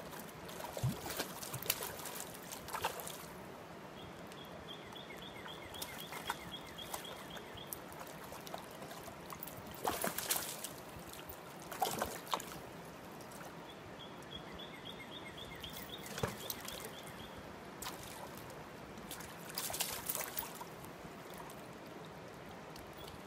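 Hooked trout thrashing and splashing at the river's surface as it is played toward a landing net, several separate splashes over the sound of moving water. Twice a run of rapid high ticking is heard as well.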